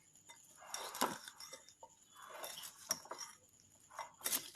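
A spoon stirring cut okra and spices in a microwave-safe bowl: soft scraping strokes in a few separate swells, with light clinks of the spoon against the bowl.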